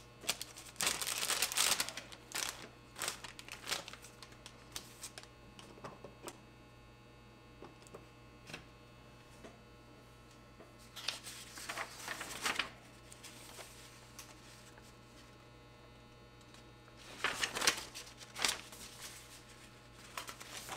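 Sheets of paper rustling as printed instruction pages are leafed through, in a few short bursts: about a second in, after about eleven seconds, and again near the end. A faint steady low hum runs underneath.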